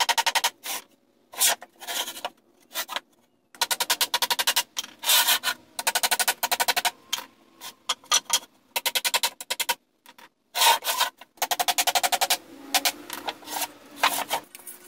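Pallet wood being hand-sanded with sandpaper: rapid back-and-forth scraping strokes in runs of a second or two, broken by short pauses.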